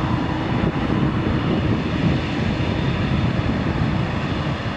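Boeing 787 Dreamliner's jet engines running with a steady, heavy rumble as the airliner starts its takeoff, just after its takeoff clearance.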